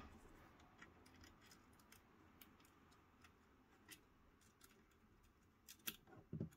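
Faint, scattered small metallic clicks of an SMA antenna connector's washer and nut being fitted and hand-threaded onto a metal PC chassis, with a small cluster of clicks near the end.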